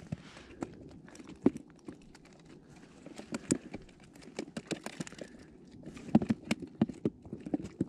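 Scattered light clicks and taps, irregular and close to the microphone, from handling a short winter ice-fishing rod while jigging a spoon through the hole.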